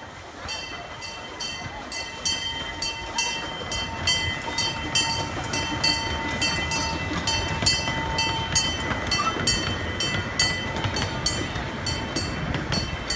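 Railroad crossing gong bell ringing in rapid, even strikes, about two to three a second, while a miniature live-steam locomotive and its passenger cars roll past with a rumble that grows louder about two seconds in.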